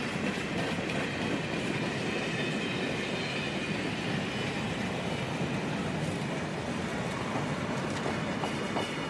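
Freight cars of a passing Conrail train rolling steadily by: a continuous rumble of steel wheels on rail with some clickety-clack over rail joints, and a faint high wheel squeal over it.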